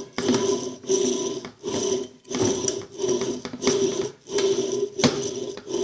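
Electrolux washing machine motor rattling in repeated bursts about every two-thirds of a second over a steady hum. The noise comes from the motor bearing under the pulley, worn out by the pull of the belt.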